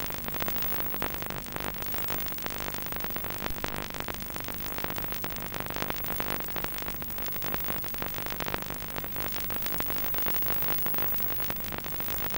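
Background synthesizer music at a steady level.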